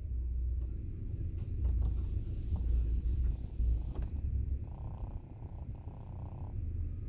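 Car engine idling with a low, steady rumble, heard from inside the stopped car.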